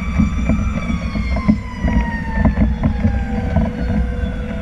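Fire truck siren wailing, its pitch falling slowly, heard from the tiller cab of a moving tractor-drawn aerial ladder truck over the low rumble of the truck and road and scattered rattles.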